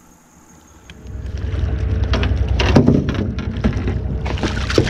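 A hooked crappie splashing and thrashing at the water's surface as it is led to the boat. From about a second in, a low rumble of wind on the microphone runs under it.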